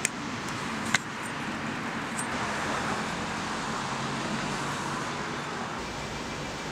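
Steady outdoor background noise, like distant road traffic, with two sharp knocks about a second apart near the start.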